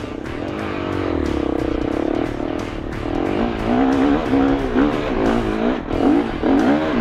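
KTM 350 SX-F's single-cylinder four-stroke engine riding off-road, at a fairly steady pitch at first, then revving up and down over and over from about three seconds in as the throttle is worked on rough ground.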